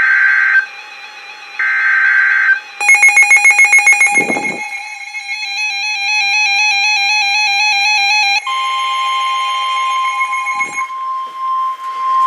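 NOAA Weather Radio emergency alert tones: the last of the SAME digital header bursts, harsh high-pitched data squawks about a second long. They are followed by a fast run of beeps and a few seconds of electronic tones stepping up and down in pitch. Near the end the steady single-pitch warning alarm tone starts, signalling a tornado warning.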